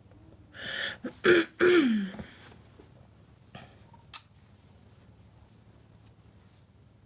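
Throaty vocal sounds from a person: a breathy rush, then two short loud bursts from the throat, the second sliding down in pitch. A single sharp click follows a couple of seconds later.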